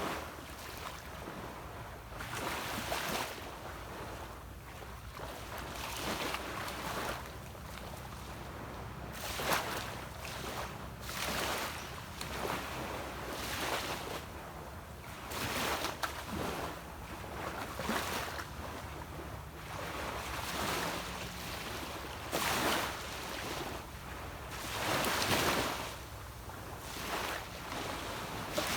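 Small sea waves breaking and washing up a beach, a surge of rushing water every two to three seconds, over the steady low hum of a distant boat engine.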